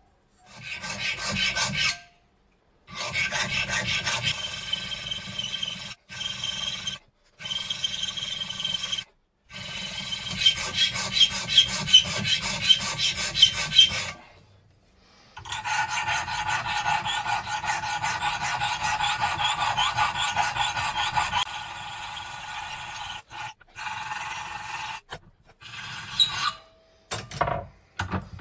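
Hand file scraping back and forth across the edge of a thin piece of saw-blade steel clamped in a bench vise, shaping a marking-knife blade. The fast strokes come in several runs separated by short pauses, with a ringing metallic tone over the rasping.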